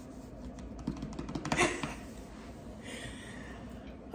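Soft rustling and a few light clicks of movement close to the microphone, loudest about a second and a half in, with a short breathy hiss about three seconds in, over a low steady room hum.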